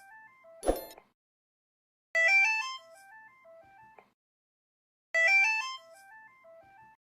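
Mobile phone ringtone: a short electronic melody of quick stepped notes, repeating about every three seconds, each phrase opening loudest with a rising run. A single sharp knock comes just under a second in.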